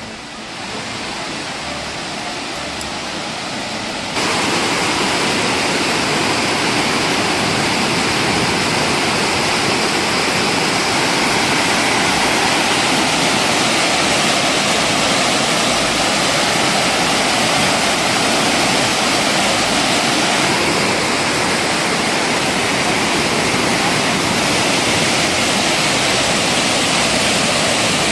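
Montmorency Falls, a large waterfall, rushing and crashing as a steady, heavy wash of water noise heard from the footbridge above it. It gets suddenly louder about four seconds in and then holds steady.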